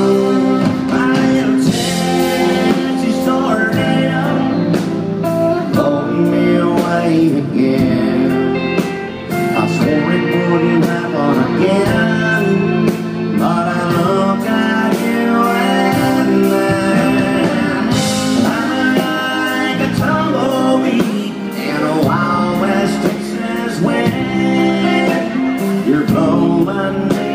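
Live country band playing through a stage sound system, electric guitars over drums, heard from among the audience.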